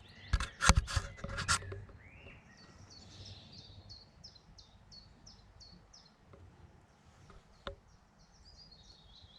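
Several sharp handling knocks in the first second and a half, then a small songbird singing: a run of short, high, downward-slurred notes repeated about three times a second, with another brief phrase near the end. One more single click comes after the run.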